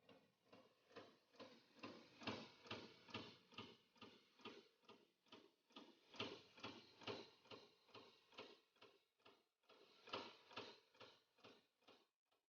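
CNC turret punch press punching sheet metal: a faint, rapid run of sharp strikes, about four or five a second, that stops shortly before the end.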